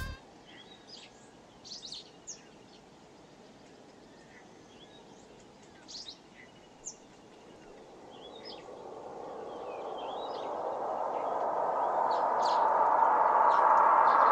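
Songbirds chirping faintly in woodland, in short scattered calls. Over the last six seconds a rushing hiss of noise swells steadily and grows loud.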